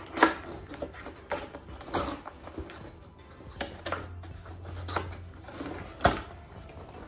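Cardboard box flaps being pried and folded open by hand: scraping and rustling of cardboard with several sharp snaps and pops, the loudest about six seconds in.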